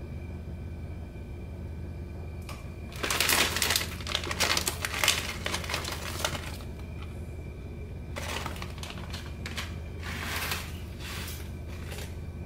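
A block of dry, uncooked instant ramen noodles crackling as it is broken and crumbled by hand, in two bouts of dense crisp clicks: a louder one starting about three seconds in and a softer one about two-thirds of the way through.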